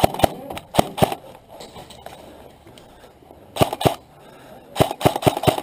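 Airsoft guns firing sharp single shots, mostly in quick pairs, with a faster run of several shots near the end.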